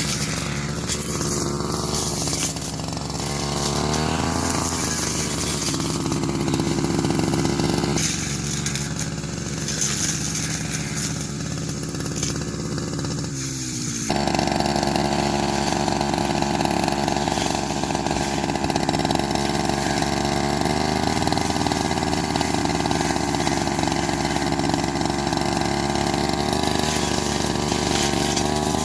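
Small petrol engine of a grass-cutting machine running as it cuts, its pitch wandering up and down; about fourteen seconds in it speeds up sharply and holds a higher, steady pitch.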